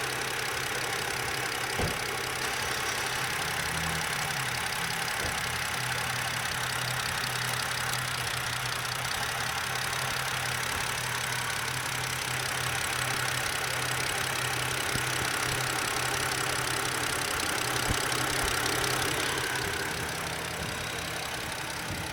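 2007 BMW 530i's inline-six idling rough, with one engine connector unplugged to check for a change in the idle. A single sharp click comes about two seconds in. The rough idle goes with lean codes on both banks.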